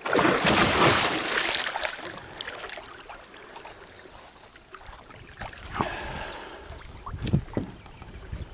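Water splashing loudly for about two seconds as a big hooked Murray cod thrashes at the surface beside the boat, then quieter sloshing with a couple of sharp knocks near the end.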